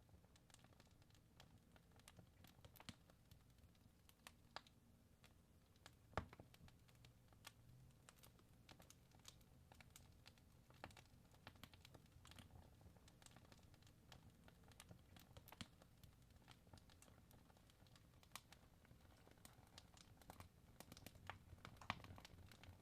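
Logs burning in a fireplace: faint, irregular crackling with scattered sharper pops, the loudest about six seconds in and again near the end, over a low rumble.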